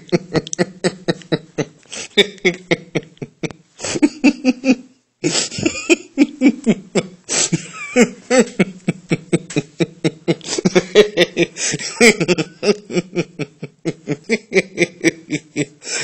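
A man laughing heartily, the laugh broken into quick pulses, several a second, with a short catch of breath about five seconds in.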